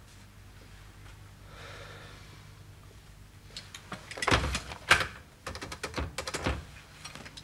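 A run of sharp knocks and clicks, with two louder thuds about four and five seconds in, followed by a quick cluster of smaller clicks.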